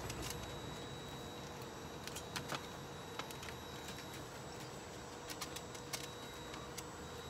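A dog eating dry kibble from a bowl: scattered sharp clicks and crunches, several in quick succession around the middle, over a faint steady hum.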